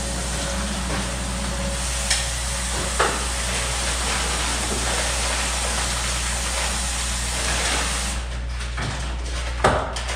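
A steady hiss over a low hum, cutting off about eight seconds in, with a few light knocks.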